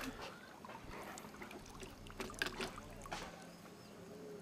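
Crucian carp splashing in a landing net as it is lifted from the water, with water dripping, and a few short sharp clicks about two to three seconds in.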